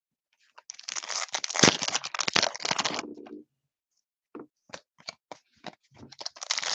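Plastic trading-card pack wrapper crinkling as it is torn open, for about two and a half seconds. A few light clicks follow as the cards are flicked through, and more wrapper crinkling starts near the end.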